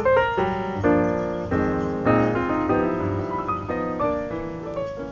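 Piano music: a run of struck notes and chords, gradually fading out toward the end.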